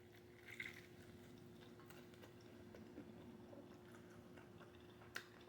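Near silence with faint chewing and mouth clicks from someone eating spicy chicken legs. A faint steady hum runs underneath, and there is a sharper click near the end.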